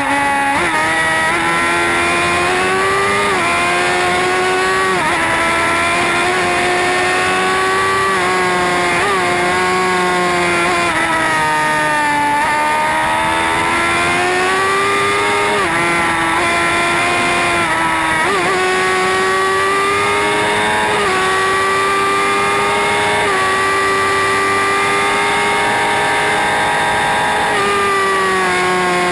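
Sport motorcycle engine at high revs under hard acceleration. Its pitch climbs steadily and falls sharply many times, as it is shifted up through the gears.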